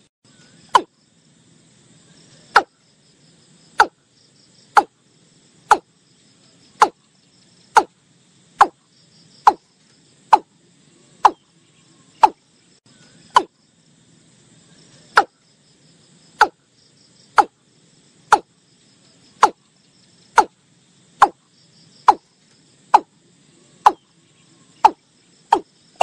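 Watercock calling: a long series of short, sharp notes, each falling in pitch, about one a second and quickening near the end. Insects chirr steadily behind the calls.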